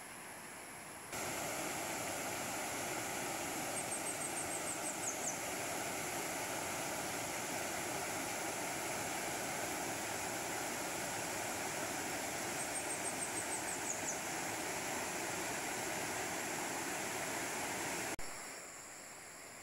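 Rushing stream water, a steady even rush that starts suddenly about a second in and cuts off near the end. A short run of high, quickly falling chirps sounds twice over it.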